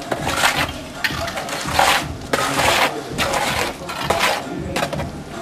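A metal hand tool scraping and rasping against firebrick in a series of short strokes, about one every half to three-quarters of a second.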